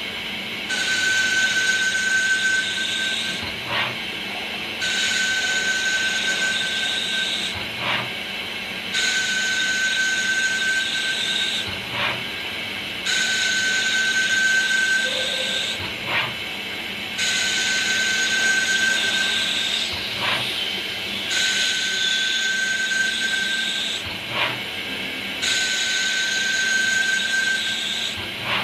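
CNC machine cutting a brass shaft in a repeating cycle. About every four seconds there is a hissing cutting pass with a steady high whine, then a short pause with a brief click before the next pass.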